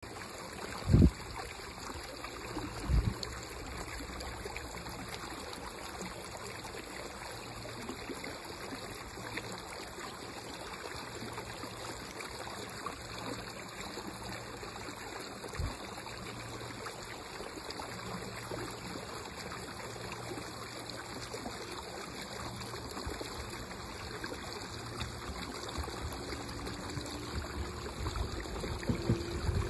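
A steady rush of wind noise, broken by two sharp thumps about one and three seconds in. In the last few seconds an electric local train starts up from the station, its motor whine rising in pitch as it gets louder.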